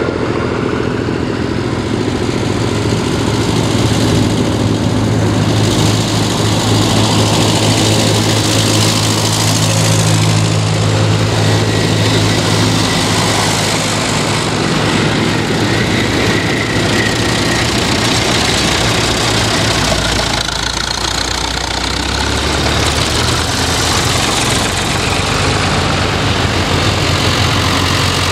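Vintage tractors driving past one after another, their engines running steadily with a low, even drone that changes as each machine comes close and goes by.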